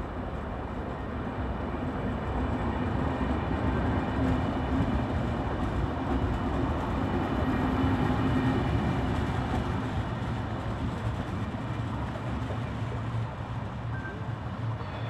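Vivalto double-deck regional train rolling past the platform and pulling away: a steady rumble with a thin whine, growing louder to about halfway and then fading as it recedes.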